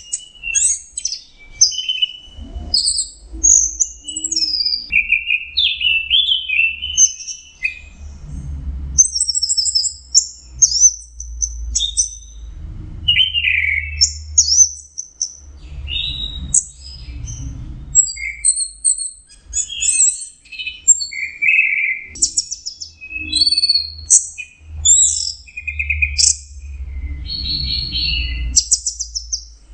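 Orange-headed thrush singing a long, varied song of short high phrases in quick succession, with hardly a break. A low rumble comes and goes underneath.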